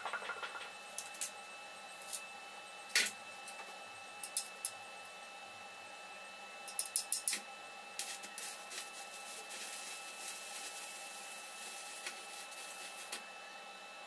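Stick (arc) welder tacking a corner of a square steel tube frame: a quick run of taps as the electrode is struck, then about five seconds of steady crackling from the arc that stops abruptly. Before that, scattered clicks and one sharp metal knock as the frame and rod are handled.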